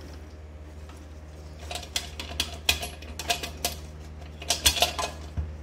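A loose metal block rattling and clinking inside the cast-iron head of a Singer 127 sewing machine as the head is shaken to get it out. The clinks come in several short, irregular runs, starting about a second and a half in.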